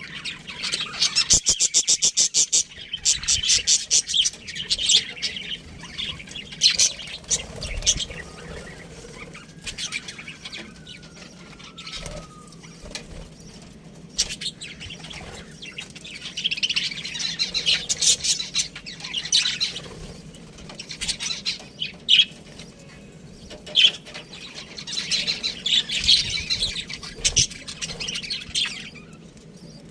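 Budgerigars chirping and chattering in rapid, high-pitched bursts, busiest near the start, around the middle and again near the end, with occasional wing flaps.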